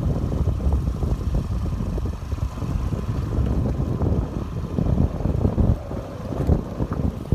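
Wind buffeting the microphone: a loud, gusting low rumble that swells and fades unevenly.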